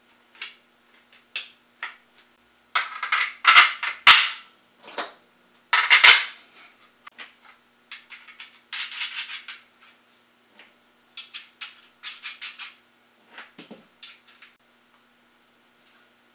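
Small steel screws and nuts clinking and rattling, with hard plastic parts knocking together, as bolts are pushed through a 3D-printed roller's wheel bearing assembly. Irregular clicks and clatters, loudest in a cluster a few seconds in and again about six seconds in.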